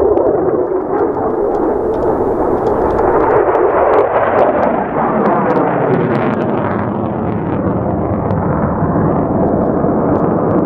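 Loud, steady roar of an RNLAF F-16 fighter jet's engine as it flies a display overhead, its tone slowly sweeping as the jet moves, with a faint crackle.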